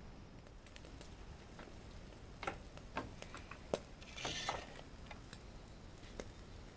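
A few sharp clicks and a short metal scrape as the small draft door on the front of a shichirin charcoal grill is slid shut, cutting off air to the coals, with one more click near the end. A low steady background rumble lies under it.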